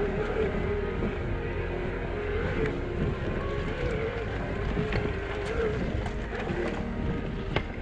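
Specialized Turbo Levo e-mountain bike riding a dirt forest trail: the mid-drive motor whines steadily, its pitch wavering, over tyre rumble and the rattle of the bike, with a sharp knock near the end.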